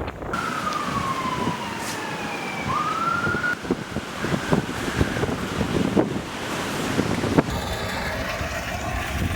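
Emergency vehicle siren wailing: one slow fall in pitch, then a quick rise, fading away about halfway through. Wind buffets the microphone throughout, with scattered knocks.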